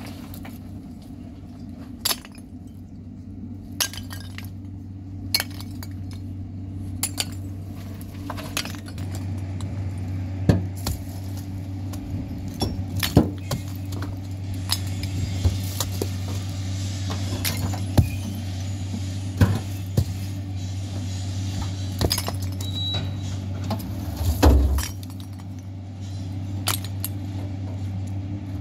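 Scattered sharp clinks and knocks of small hard objects, every second or two, like glass being handled, over a steady low hum. A heavier knock near the end is the loudest sound.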